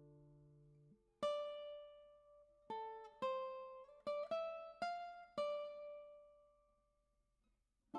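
Background music: a plucked string instrument plays a slow line of single notes. A held chord fades out first, then about seven plucked notes follow, and the last one rings away to near silence near the end.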